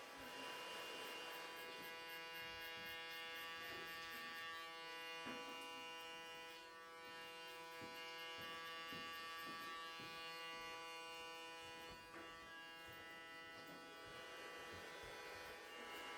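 Electric hair clipper running with a steady buzzing hum, with faint scattered clicks.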